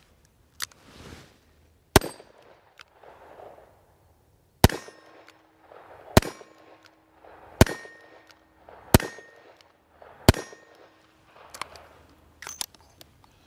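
SAR 38 .357 Magnum revolver fired six times, about one and a half seconds apart, each shot with a short ringing tail, with a few lighter metallic clicks near the end.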